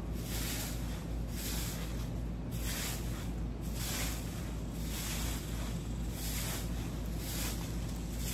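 Short-handled straw broom sweeping leaves and grit across bare dirt: a steady run of scratchy swishing strokes, roughly one every half-second to second, over a low steady rumble.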